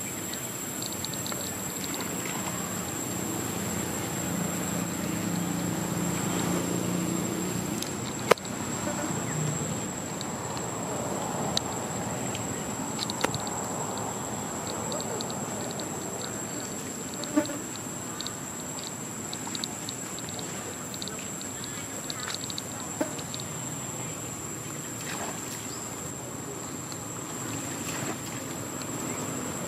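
Outdoor insect drone: a steady high-pitched buzz with faint rapid chirping, a low murmur in the first several seconds, and a few sudden sharp knocks scattered through.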